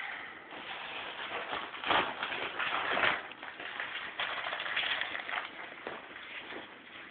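Paper rustling and crinkling in uneven surges, as a present from a Christmas stocking is unwrapped by hand.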